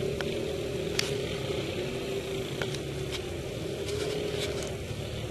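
Competition ATV engines running in the distance, the engine note fading away and then swelling again near the end, with a few sharp clicks.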